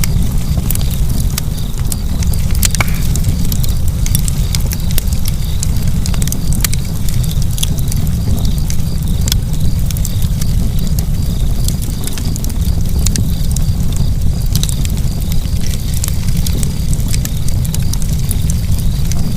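Wood fire burning in a fireplace: frequent irregular crackles and pops over a steady low rumble.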